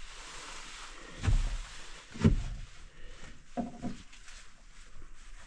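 A few dull knocks and thumps, two of them about a second apart, then a short pitched sound about three and a half seconds in.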